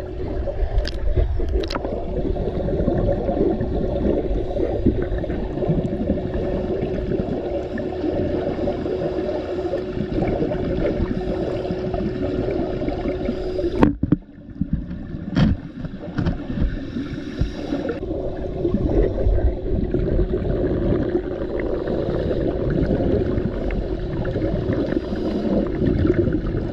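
Muffled underwater sound of a swimming pool picked up by a submerged camera: a continuous low rumble and gurgle of water and bubbles under a faint steady hum. A few sharp clicks stand out, and there is a brief break about 14 s in.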